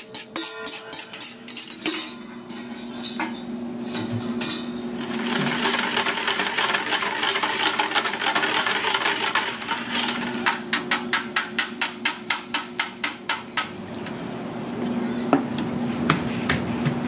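Wire whisk beating takoyaki batter in a plastic bucket: fast rhythmic strokes of about four a second knocking against the bucket, with a wet swishing stretch in the middle as the batter is stirred. A couple of separate knocks come near the end.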